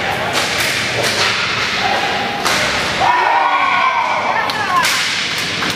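Inline hockey play: repeated sharp cracks and knocks of sticks striking the puck, the floor and the boards. A drawn-out shout rises over it from about three to five seconds in.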